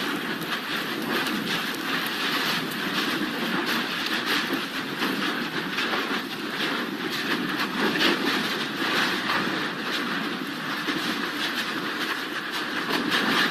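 Lava fountaining from a Kilauea fissure vent: a loud, steady rushing noise of gas and molten rock jetting out, with constant sharp crackling and popping of spatter.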